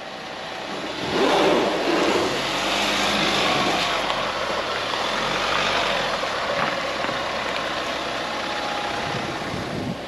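Mahindra Scorpio SUV's engine working under load as it climbs a steep, loose gravel drive, with the tyres on the gravel; the sound grows louder about a second in and then holds steady.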